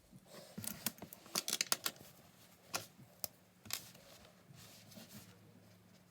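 A quick run of sharp clicks and snips, bunched together about a second in, then a few single clicks spaced out after it.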